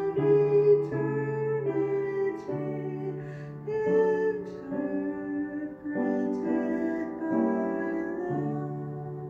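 Hymn singing with keyboard accompaniment, the held chords changing about once a second.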